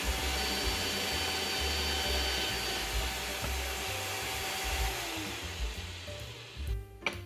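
Drill press motor running steadily, then switched off about five seconds in, its hum falling in pitch as it winds down. A sharp click near the end.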